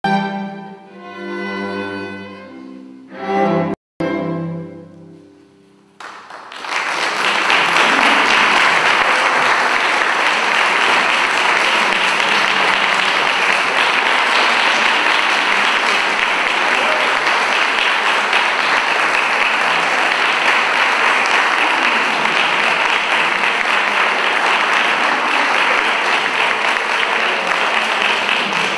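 A string quartet of two violins, viola and cello plays the last sustained chords of a piece, stopping about six seconds in. Then the audience breaks into steady applause that carries on.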